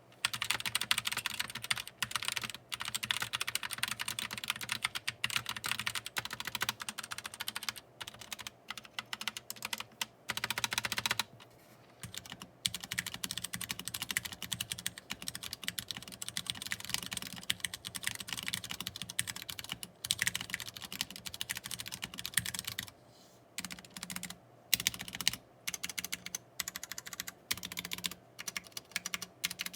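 Rapid typing on a mechanical keyboard with tactile brown switches, a dense run of key clicks broken by a couple of short pauses.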